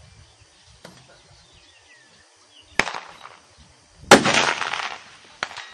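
XP-100 bolt-action pistol in 6mm BR firing: a loud shot about four seconds in that rolls on for about a second. A shorter, quieter shot comes just over a second before it, with faint clicks around them.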